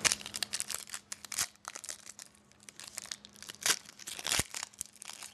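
Crinkling and tearing of a hockey trading-card pack's wrapper as it is torn open and handled, in irregular sharp crackles.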